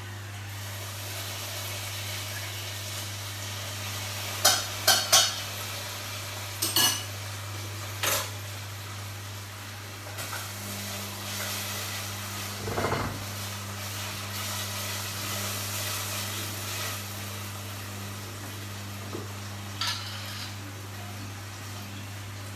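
Metal utensils clinking against pots and pans on a stove: a quick run of three sharp clinks about four to five seconds in, two more near seven and eight seconds, a duller knock around thirteen seconds and a last clink near twenty. Under them is a steady hiss and a constant low hum.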